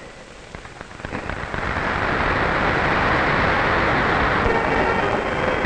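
Large crowd applauding, swelling from about a second in to a steady, dense clapping.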